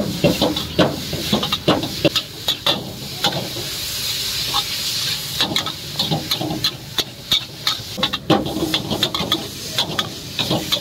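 Long metal spatula scraping and clanking against a wok as noodles are stir-fried, in quick irregular strokes over a steady sizzling hiss. The strokes pause briefly about four seconds in, leaving the hiss alone.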